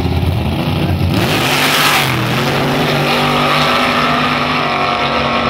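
Two gasser drag cars, one a red Chevy II, launching side by side with a sudden loud blast about a second in, then their engines accelerating hard at full throttle, rising in pitch as they pull away down the strip.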